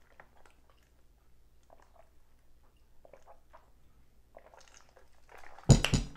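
Sipping a drink through a straw from a plastic tumbler: faint mouth noises. Near the end the tumbler is set down on the table with a loud knock.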